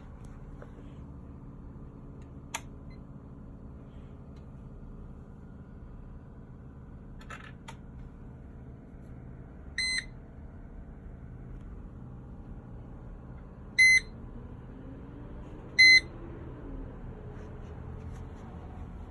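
A Mercedes-Benz W210 instrument cluster's electronic beeper sounds three short, high beeps: one about ten seconds in, then two louder ones about two seconds apart near the end, over a steady low hum. A faint click comes early on.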